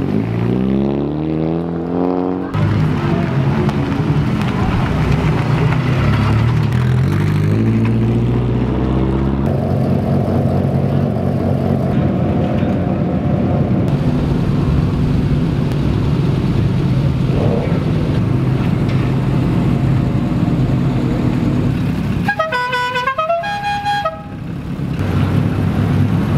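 Rally car engines accelerate twice, rising in pitch, then run steadily. A horn toots for about two seconds near the end.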